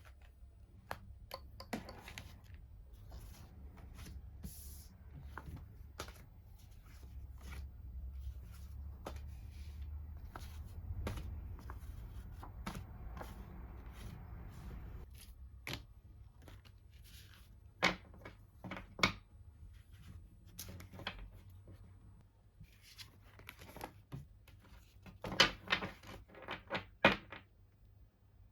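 Small objects being handled: scattered light clicks and taps with a soft rustle, and a quick run of louder taps near the end.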